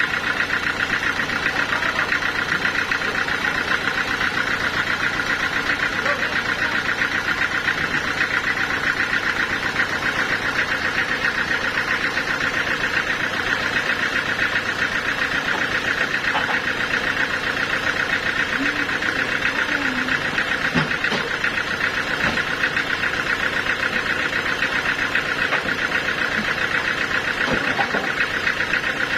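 Sawmill machinery's engine running steadily with a rapid, even pulse.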